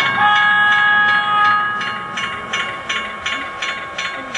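Train running with an even clicking about three times a second, like wheels passing over rail joints. Several steady high tones sound over it, and some of them stop about a second and a half in.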